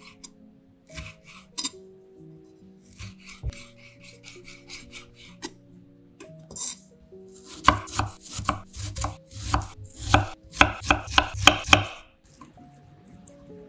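Kitchen knife slicing vegetables on a wooden cutting board. Scattered single cuts come first, then a quick run of strokes, about three a second, in the second half. Soft background music plays underneath.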